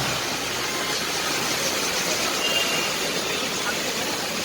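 Heavy rain pouring down in strong wind: a steady, loud noise.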